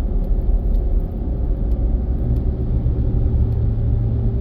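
Steady road and engine rumble of a moving car heard from inside its cabin, with a low hum that comes up about halfway through.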